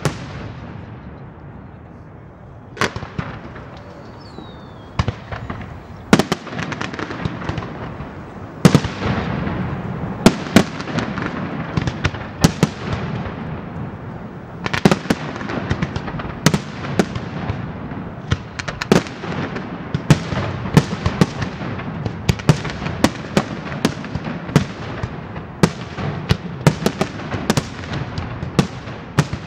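Pirotecnia Martí aerial firework display: shells bursting in a string of sharp bangs, only a few in the first seconds and then coming fast, several a second, from about six seconds in. A steady crackle fills the gaps between the bangs.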